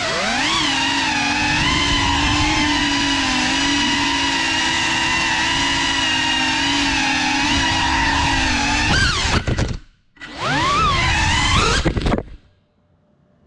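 GEPRC FPV quadcopter's brushless motors and propellers whining loudly at high throttle, heard from the GoPro riding on the drone, the pitch wobbling with throttle changes. The whine drops out for a moment near ten seconds in, comes back with quick rises and falls in pitch, then cuts off abruptly about twelve seconds in as the quad tumbles.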